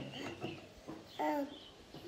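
A mostly quiet pause, broken about a second in by one short voiced sound, a brief murmur or syllable from a person.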